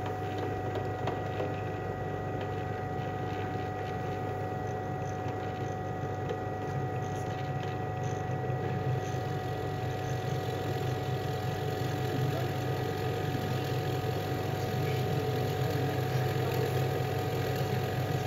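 Allwin 17-inch 16-speed floor-standing drill press running with a steady hum. Its bit is fed down into a wooden board, and the sound grows a little louder and rougher in the second half as it cuts.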